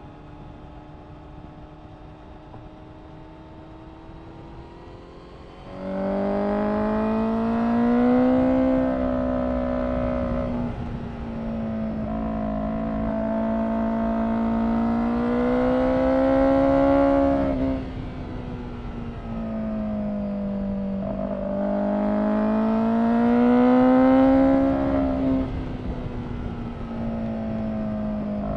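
A Honda CBR1000RR-R SP Fireblade's inline-four engine running through an Akrapovic exhaust. It is fairly quiet at first; about six seconds in it suddenly gets much louder. Its pitch then climbs and eases in long, slow swells several seconds apart, dropping back sharply twice.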